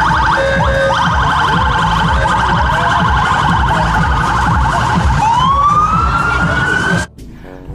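Police car siren sounding a fast warble, then switching about five seconds in to a rising wail that cuts off abruptly near the end, over a low street-traffic rumble.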